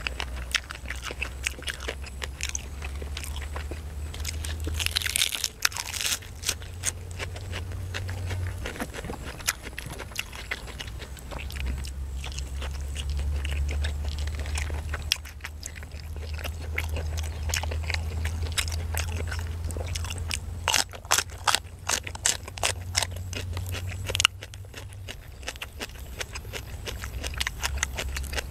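Close-up chewing of grilled chicken, with many sharp wet mouth clicks and crunches, over a steady low rumble.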